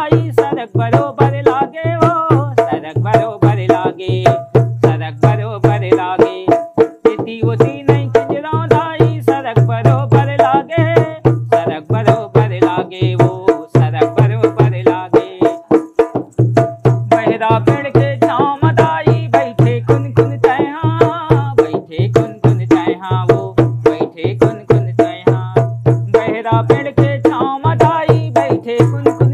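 A man singing a Chhattisgarhi jas geet devotional folk song in a stuttering, echo-like style, repeating syllables, to his own fast hand-played dholak. The drum's bass head gives a deep thump under quick, sharp slaps on the treble head.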